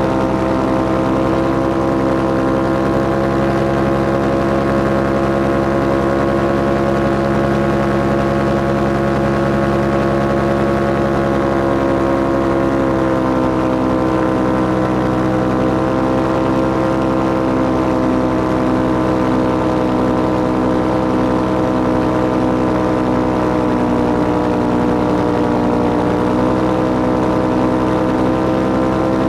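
Paramotor engine and propeller running steadily in flight. The pitch drops slightly about 13 seconds in, and again a few seconds before the end.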